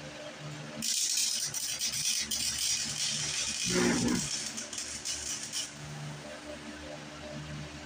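Electric welder crackling as it lays one weld of about five seconds, filling a small hole with weld. It starts about a second in and cuts off abruptly.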